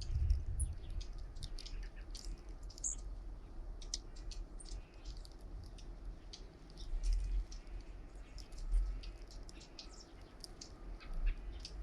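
Small birds feeding at a bird feeder: many quick high ticks and a few short, high chip notes. Low gusts of wind buffet the microphone, strongest about seven, nine and eleven seconds in.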